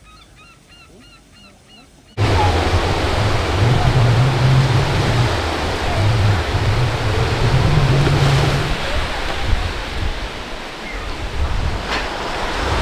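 A bird gives short calls repeated about three times a second over quiet. About two seconds in, the sound cuts suddenly to loud surf from small waves breaking on a sandy beach, with a fluctuating low rumble of wind on the microphone.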